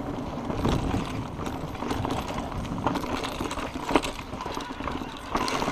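Orbea Wild electric mountain bike rolling fast down a dirt trail: tyres rumbling over dirt and roots while the bike rattles and knocks irregularly over the bumps, with one sharper knock about four seconds in.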